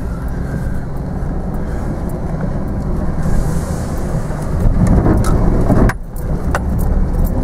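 4x4 jeep engine running under load as the vehicle climbs a steep dirt bank, heard from inside the cabin, with knocks and rattles from the body and loose items. It grows louder about four and a half seconds in, then drops off suddenly just before six seconds.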